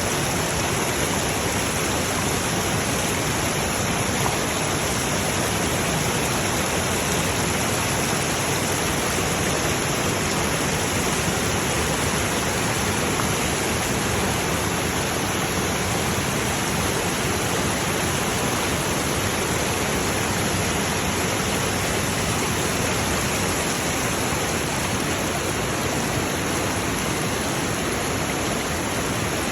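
Waterfall roaring steadily: an even, unbroken rush of falling water.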